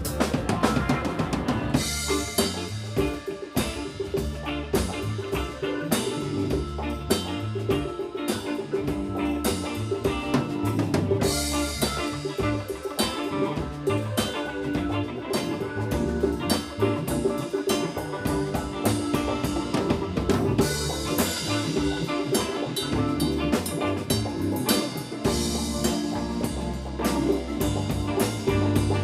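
Live funk band playing an instrumental stretch with no vocals: a drum kit with snare and bass drum keeps a steady beat over sustained low and mid instrument tones.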